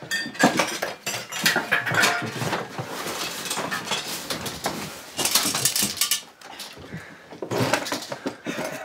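A wooden sideboard drawer being opened and rummaged through, with small objects inside rattling and clinking in quick, irregular clicks.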